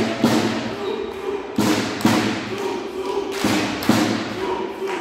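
Sharp double impacts, a pair about every one and a half seconds, ringing in a large echoing sports hall over voices.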